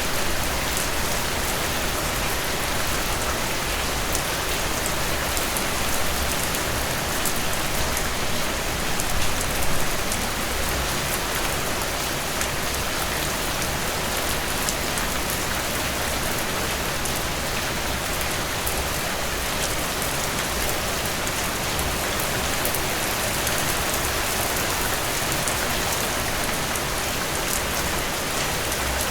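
Steady heavy rain falling and pattering on surfaces, with no thunder, and a brief swell in intensity about a third of the way in.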